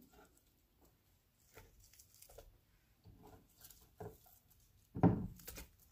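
Sliced onion being pulled apart and dropped into a slow-cooker crock over mushrooms and meat. Faint scattered soft rustles and taps, with one louder rustle or bump about five seconds in.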